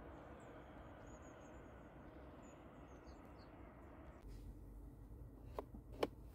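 Faint outdoor ambience with small birds chirping. About four seconds in it gives way to a quiet cabin hush, and the car's drive mode dial clicks twice as it is turned, the second click the louder.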